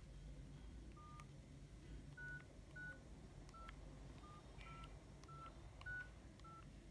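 Nokia 6300 keypad tones: about nine short, faint beeps at an uneven pace, each with a light key click, as a service code is typed on the phone's keypad.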